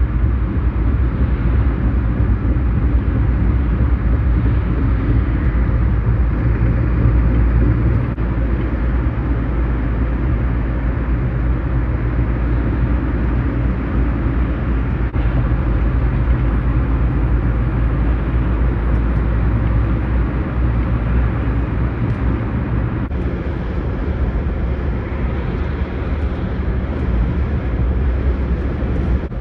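Scania lorry cruising at steady motorway speed: a steady low engine drone with tyre and road rumble.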